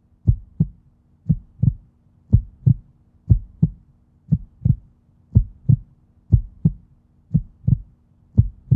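Heartbeat sound effect in a soundtrack: slow lub-dub double thumps, about one pair a second, over a faint steady hum.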